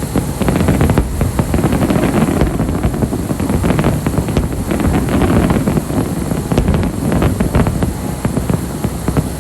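Fireworks display: rapid, dense crackling over a continuous low rumble.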